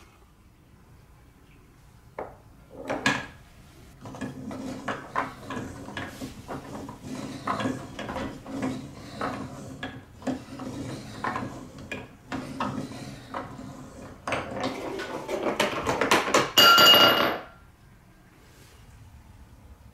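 Hand-cranked Trix Track staircase marble lift clacking irregularly as its plastic steps push a marble upward. Near the end the marble drops into a glass bowl and rolls around it, ringing loudly for about a second.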